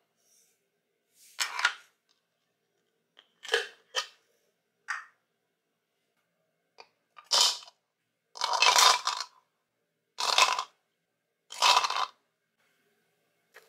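Hard plastic parts of a toy ice cream maker being handled and fitted together: a series of short clacks and rattles, about eight separate bursts with pauses between, the longest lasting about a second near the middle.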